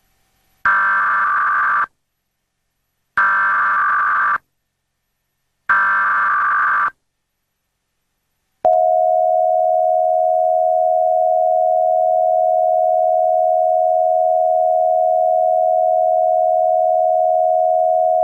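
Emergency Alert System test signal, lowered in pitch. Three buzzing SAME header data bursts come about a second each, with short gaps between them. About nine seconds in, a long, steady two-tone attention signal starts.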